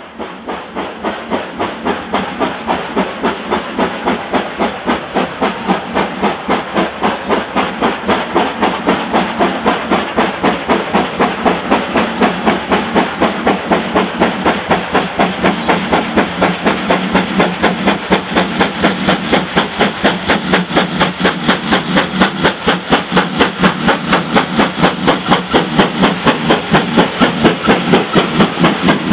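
GWR 0-6-0 pannier tank locomotive 1501 hauling a goods train under steam. Its exhaust beats come steadily, about two to three a second, over a constant hiss of steam, and grow gradually louder as it approaches.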